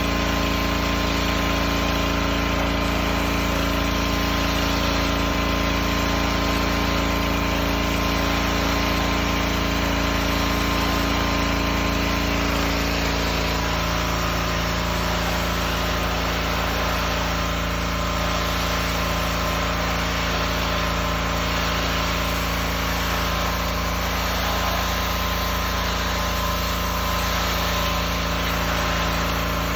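Gas-engine pressure washer running steadily over an even hiss; its engine note shifts slightly about thirteen seconds in.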